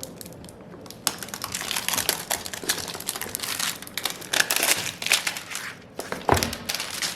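Packaging crinkling and crumpling in the hands as a new card deck is unwrapped, a dense run of crackles that starts about a second in, with one louder knock near the end.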